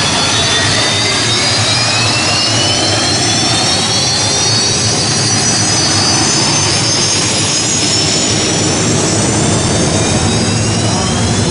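Hydroplane's Chinook-helicopter turbine engine running loud, a high whine over a dense roar, its pitch climbing steadily over several seconds; a second climbing whine starts near the end.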